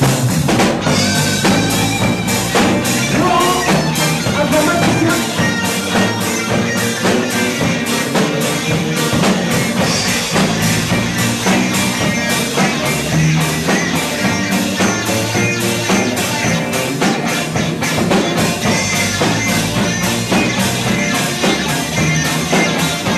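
Live rock band playing with a steady beat: drum kit, electric guitar and bass guitar.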